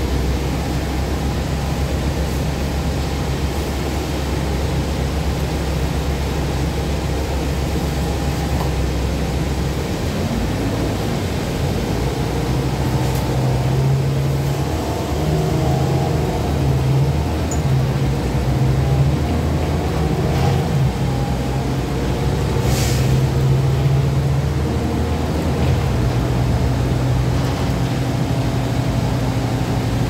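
A 2012 Gillig Advantage low-floor city bus's engine heard from inside the cabin. It idles steadily at first; about ten seconds in, the bus pulls away, and the engine note rises as it accelerates and then runs under way, with a few faint interior rattles.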